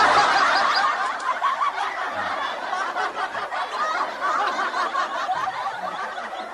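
Baby birds chirping together, a dense, continuous chatter of many overlapping short high calls.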